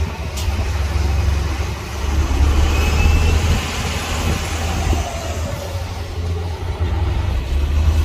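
Bulldozer's diesel engine running with a deep steady rumble, getting louder about two seconds in, with a short sharp knock just after the start.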